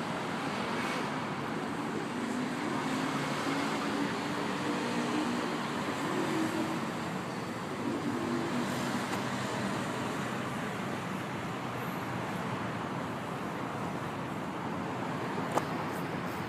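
Steady rumble of road traffic with no train clearly standing out, a faint hum of tones in the first half, and a sharp click near the end.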